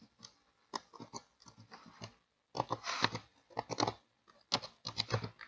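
Computer keyboard typing: faint, irregular runs of quick keystrokes as a word is typed.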